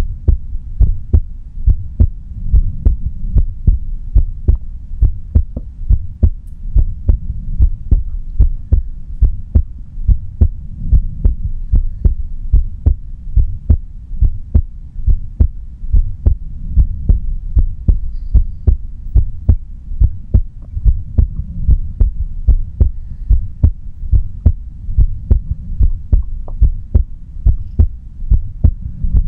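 Human heartbeat heard up close, a steady rhythm of paired low thumps (lub-dub) over a constant low rumble.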